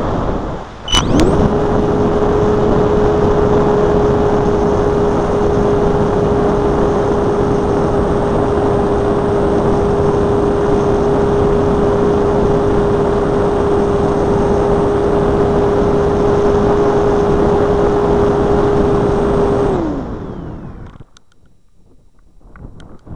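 Multiplex Blizzard RC glider's electric motor and propeller spinning up about a second in, running at one steady pitch with a faint high whine, then winding down near the end. A loud wind rush runs under it and drops off when the motor stops.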